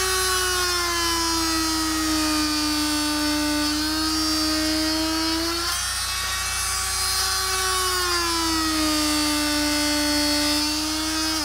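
Corded oscillating multi-tool with a straight razor blade running, cutting into the rubber tread of a tractor turf tire. A steady, high buzzing hum whose pitch sags twice as the blade bites into the rubber; it stops near the end.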